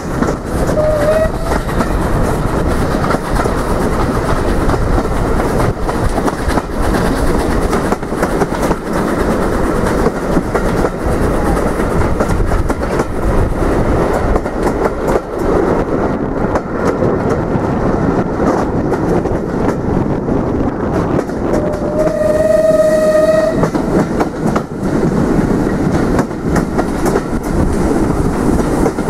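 Train running on the line, its wheels clattering steadily over the rails. It gives a brief toot of its horn about a second in, and a longer single-note blast of about a second and a half three quarters of the way through.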